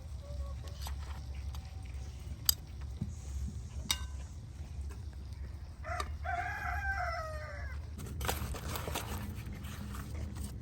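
A rooster crowing once, a single call of about two seconds that rises and then falls away. Two sharp knocks come a few seconds before it, over a steady low rumble.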